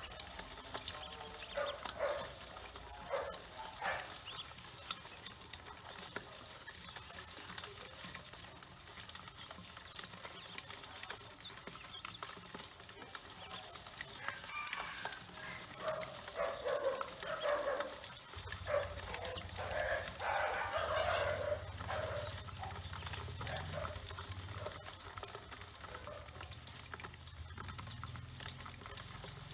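Poultry calling in scattered bouts, busiest a little past the middle. A low steady hum comes in about two-thirds of the way through.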